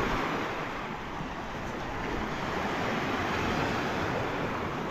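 Lake waves washing onto a sandy beach in a steady rush, with a little wind on the microphone.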